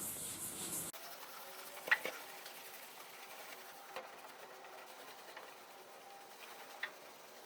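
Hand rubbing of oxidation remover into a painted tractor hood with a cloth or applicator. A hissing rub cuts off about a second in, followed by faint scratching and a few light ticks.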